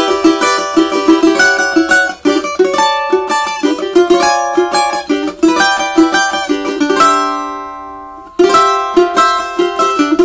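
Cavaquinho with an imbuia body and four steel strings, strummed in fast rhythmic chords. About seven seconds in, one chord is left to ring and fade for over a second, then the strumming resumes.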